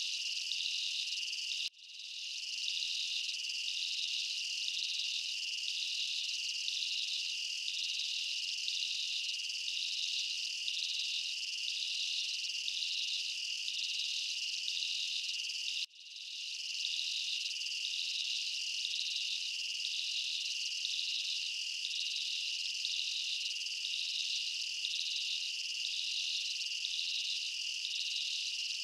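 Steady chorus of crickets chirping in an evenly pulsing trill: a looped night ambience track. It cuts out sharply and fades back in about two seconds in and again about halfway through.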